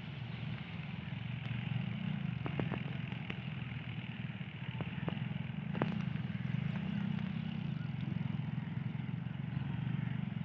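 Distant diesel-electric locomotive approaching, its engine a steady low drone, with a few faint clicks in the middle.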